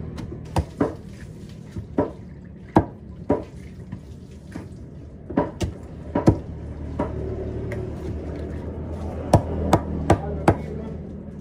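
A large knife chopping and cutting through a whole tuna on a cutting block: a dozen or more sharp knocks at uneven intervals as the blade strikes through the fish and hits the board, over a steady low hum.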